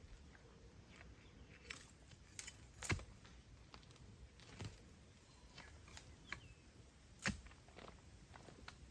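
Faint, scattered snaps and rustles, a handful over several seconds, the sharpest about three seconds in and again about seven seconds in.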